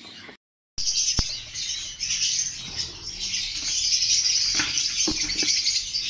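A flock of caged lovebirds chattering together in a continuous, dense, high-pitched din, with a sharp click about a second in.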